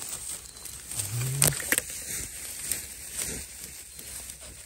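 Digging a wild bamboo shoot out of dry leaf litter and soil by hand: a couple of sharp knocks and rustling. About a second in there is a short, low voice-like grunt.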